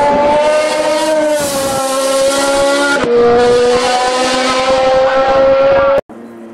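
Hill-climb race car engine running loud at high revs under hard acceleration, with an upshift about three seconds in. The sound cuts off abruptly near the end, and a much quieter engine follows.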